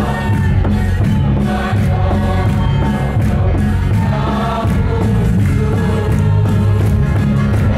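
A church congregation singing a hymn together in chorus, with a large Mizo drum (khuang) beating time.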